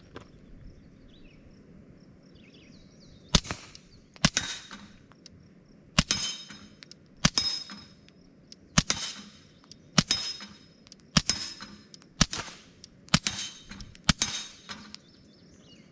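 Ten suppressed shots from a Ruger Mark IV .22 LR pistol with a Dead Air Mask suppressor, firing subsonic rounds about a second apart. Most shots are followed by a short high ring from a hit on a steel plate.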